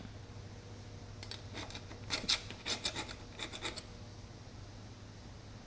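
Quick scraping strokes on the cast-iron Chevy engine block, about a dozen in a burst between one and four seconds in, then stopping; a steady low hum underneath.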